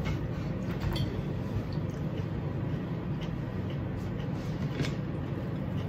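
A steady low background hum, with a few faint light clicks of a fork against a dinner plate as a person eats.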